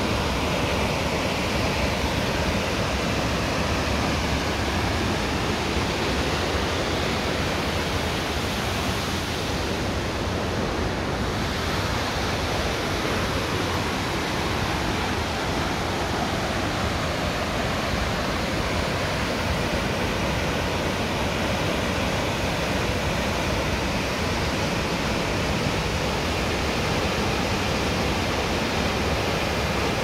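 The Keilkeller waterfall rushing: a steady, even wash of falling water.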